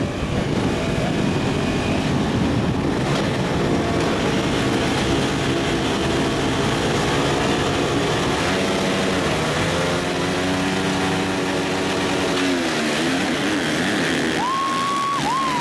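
Motocross bike engines revving up and down, several at once at different pitches, with one engine revving high near the end.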